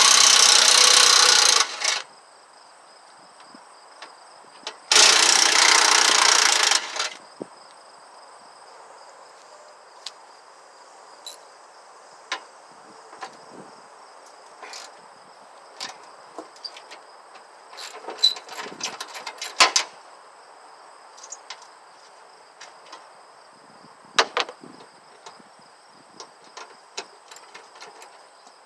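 Cheap 14.4-volt cordless impact wrench, rewired to run off a jumper pack, hammering in two bursts of about two seconds each. Scattered clicks and a clatter of metal parts follow later.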